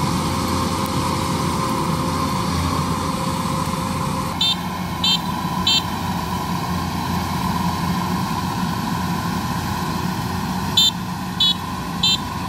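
Kubota DC-93 combine harvester running steadily while cutting rice, its tone shifting about a third of the way in. A high electronic beep sounds three times, about two-thirds of a second apart, soon after that shift, and three more times near the end.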